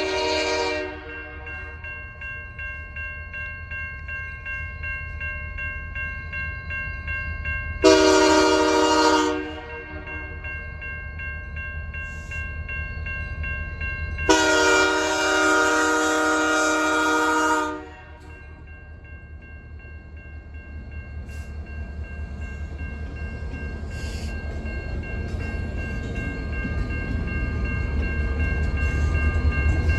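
Locomotive air horn sounding: a blast ending just after the start, a short blast about 8 seconds in, and a longer blast of about three seconds from around 14 seconds. Under it a low train rumble grows steadily louder toward the end.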